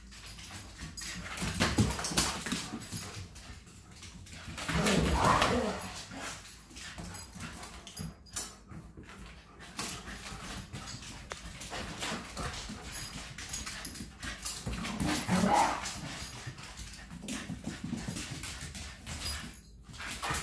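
Two dogs, a Shiba Inu and a German Shepherd, playing chase, whining and giving a few short barks, with louder vocal stretches about five seconds in and again near fifteen seconds. Throughout, a scatter of sharp clicks and scuffles, their claws on the hard floor.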